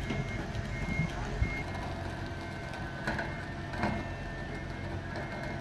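Forklift engine running steadily with its reversing beeper sounding in short high beeps during the first second or two.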